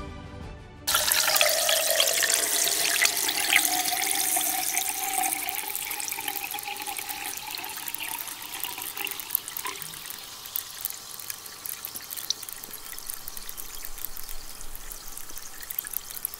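Fizzing, bubbling liquid. It starts suddenly about a second in as a rush of liquid with a slowly rising tone, then becomes a dense crackle of small bubbles popping that slowly fades.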